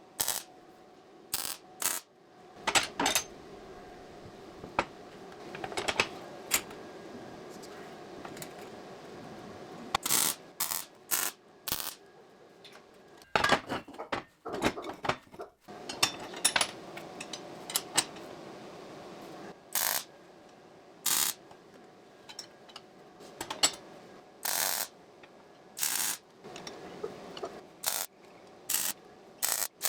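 Metal clinking and clanking: irregular sharp metallic knocks, a few each second at times, over a faint steady hum.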